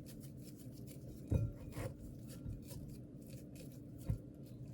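Sourdough dough being stretched and folded by wet hands: faint soft rubbing with small clicks, and a low thud about a second in as the dough is folded over.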